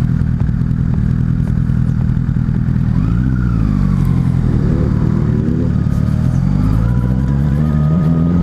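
Honda CBR1000RR Fireblade's inline-four engine running at low revs as the bike creeps through slow traffic, the revs rising and falling briefly about three and five seconds in and starting to climb near the end.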